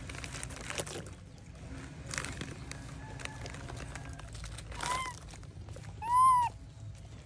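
Plastic snack wrapper crinkling, then a baby monkey gives two high squeals that rise and fall in pitch, the second, about a second after the first, louder and longer.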